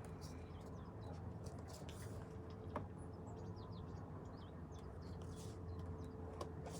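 Quiet room tone: a steady low hum with a few faint clicks and some soft, short high chirps about halfway through.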